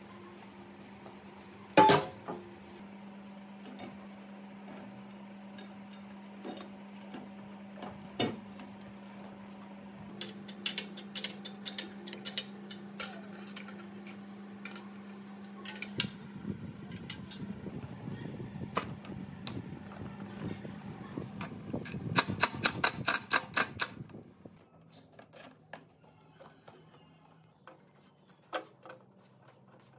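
Hand tools working on a metal air compressor: a loud clank about two seconds in, scattered clinks, and a fast run of clicks near the three-quarter mark. A steady low hum underneath stops about halfway through.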